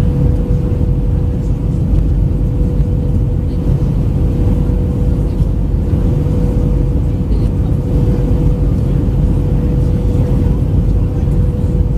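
Steady cabin noise of an Airbus A319-112 in flight on descent: airflow rush and engine drone heard from a window seat, with a steady whine running through it.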